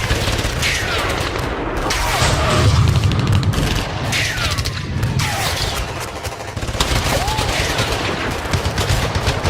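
Battle sound effect: dense, rapid automatic gunfire over a low rumble of explosions that swells about two to three seconds in, with several falling whistles cutting through.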